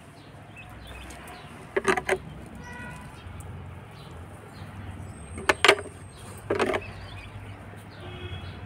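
Outdoor ambience: a steady low rumble with a few short, sharp sounds, mostly in pairs, about two, five and a half and six and a half seconds in.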